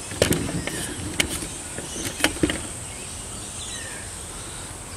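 Handling noise: a few sharp knocks and clatters in the first two and a half seconds, then only a steady outdoor background with a thin, high, steady drone.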